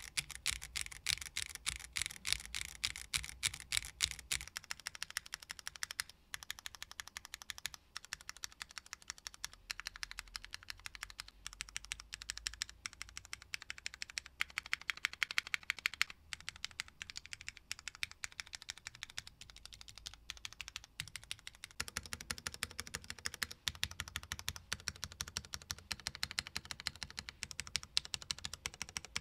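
Fast, continuous typing on a 60% mechanical keyboard with linear Cherry MX Hyperglide Black switches, Cherry screw-in stabilizers and PBT keycaps on a PC plate: a dense run of key clacks. About twenty-two seconds in the keystrokes take on a deeper, fuller note.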